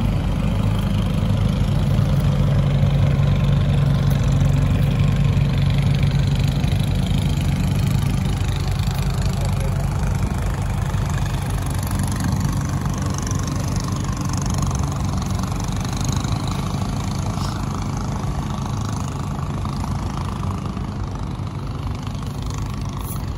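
An engine running steadily at a low, even pitch, slowly getting quieter.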